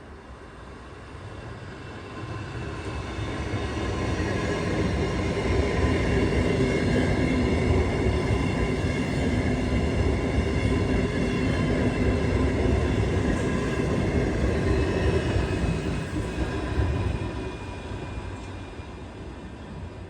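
ES2G Lastochka electric multiple unit passing by. The sound builds over a few seconds, holds loud as a rumble with several steady whining tones over it, then dies away near the end.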